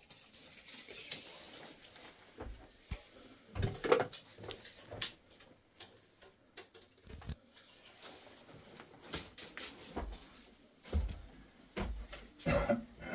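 Irregular knocks, scrapes and soft thumps of loose soil and stones being handled and shifted, with the sharpest knock about four seconds in.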